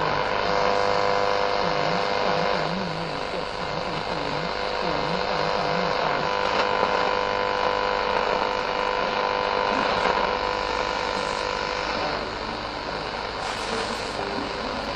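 AM receiver tuned across the medium-wave band between stations, giving a steady buzzing hum with static. The hiss brightens near the end as the tuning reaches 1044 kHz.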